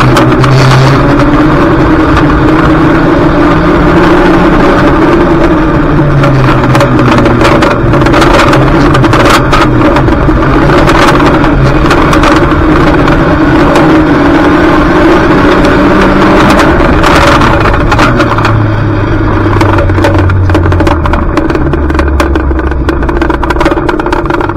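Junior banger race car's engine running hard, its pitch rising and falling as it accelerates and lifts. Frequent sharp knocks and clatters sound over the top.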